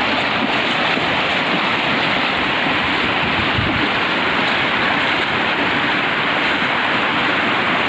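Floodwater rushing steadily across a paved road and spilling over its edge.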